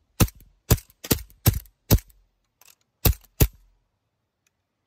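Gas blowback airsoft pistol, the SAR9 GBB, firing seven sharp shots at point-blank range into a sight-guard shield. Five come about half a second apart, then after a pause two more, each a sharp crack with a short knock from the slide and the BB striking the shield.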